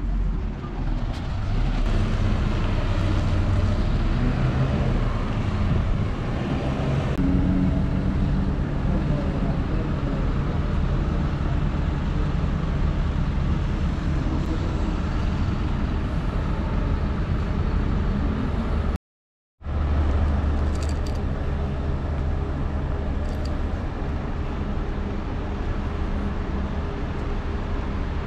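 Diesel engines of city buses idling, with passing road traffic: a steady low rumble with a wavering engine hum. The sound cuts out completely for about half a second about two-thirds of the way through.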